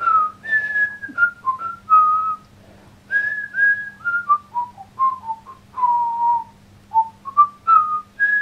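A person whistling a tune: a run of short notes with a few longer held ones, over a faint steady low hum.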